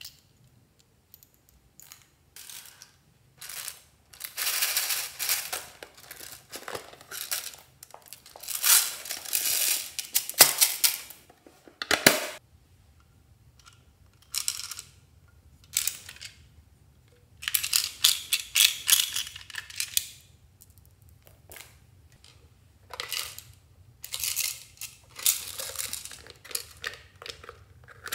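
Small plastic toys and containers being handled and opened by hand: bursts of clicking, rattling and rustling with quiet gaps between, and a sharp click about twelve seconds in.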